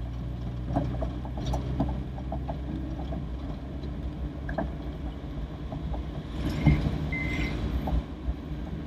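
Toyota Corolla DX running steadily, heard from inside the cabin, with small rattles and knocks in the first few seconds as it rolls over an uneven road. A short high chirp sounds about seven seconds in.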